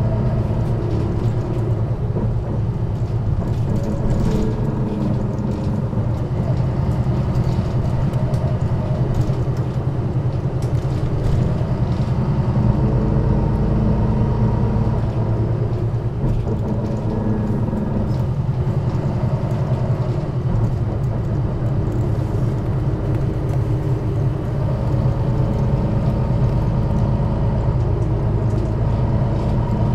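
1998 MAN NG 313 articulated bus's diesel engine running steadily, heard from on board, with a low rumble throughout.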